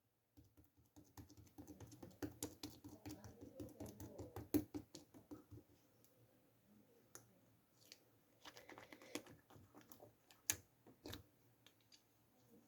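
Faint, irregular clicking and tapping: a quick run of clicks over the first few seconds, then scattered single taps and a short flurry later on.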